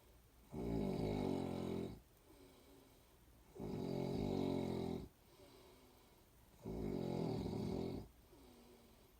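A person snoring: three long, loud snores about three seconds apart, each lasting about a second and a half, with much quieter breathing between.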